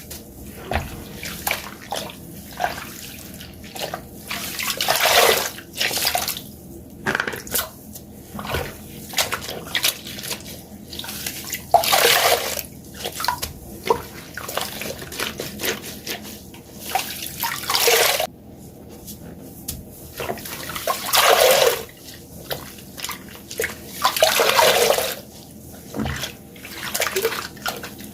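Water-soaked sponges squeezed again and again close to the microphone: water gushing out and splashing in gushes about a second long, with wet crackling and dripping between squeezes.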